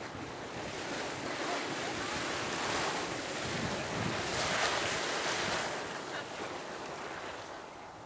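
Waterfall Geyser erupting: water spouting and splashing in a steady rushing noise that swells twice, about three and five seconds in, then eases near the end. Wind buffets the microphone.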